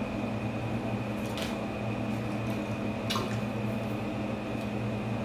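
Steady low hum of the room, with two faint wet clicks about a second and a half and three seconds in: mouth sounds of chewing a sandwich and sipping a drink.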